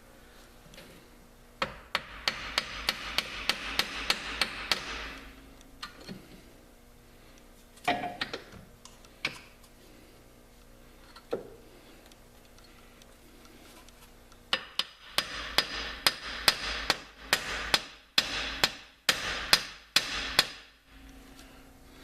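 Hammer blows on a Jeep's rear shock absorber, driving its tight-fitting end into the mount: two runs of quick strikes, about three a second, with a few single blows between.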